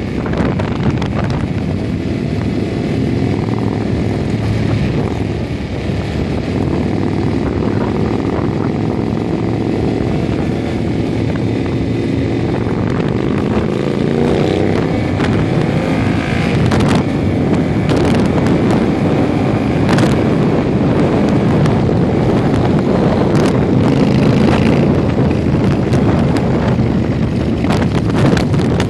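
Motorcycle engine running under way, heard from the bike itself with wind buffeting the microphone; the engine note climbs as the bike speeds up about halfway through.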